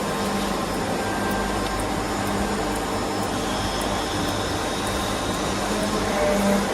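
Tornos-Bechler Deco 2000/20 CNC lathe, a Swiss-type sliding-headstock automatic, running: a steady mechanical hum with an even hiss and faint light ticks.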